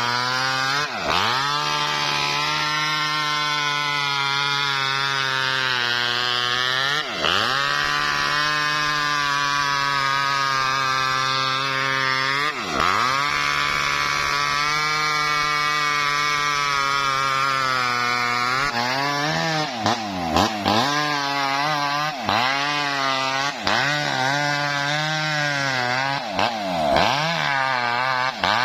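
Small two-stroke chainsaw ripping lengthwise through a coconut palm trunk, running steadily under load. Its pitch dips and recovers a few times, then dips quickly and repeatedly in the last third as the engine bogs in the cut.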